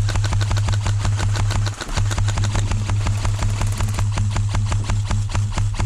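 Airsoft gun firing long full-auto bursts: a fast, even rattle of shots over a steady low hum. It stops for a split second about two seconds in, then resumes.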